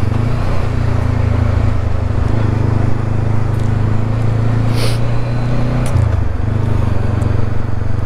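Honda CB500X's parallel-twin engine running steadily under way. The engine note drops a little about six seconds in.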